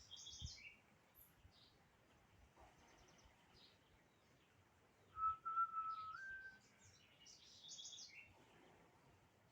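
Small birds chirping with short, high chirps scattered throughout. About five seconds in, a clear whistled note is held for about a second and a half and steps up in pitch near its end; it is the loudest sound.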